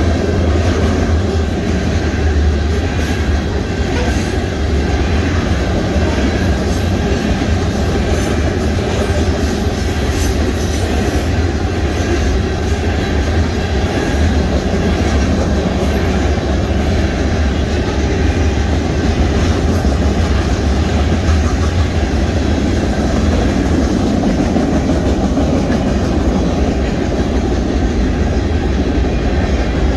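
Union Pacific mixed freight train's cars rolling past at close range: a steady loud rumble with the wheels clicking and rattling over the rails.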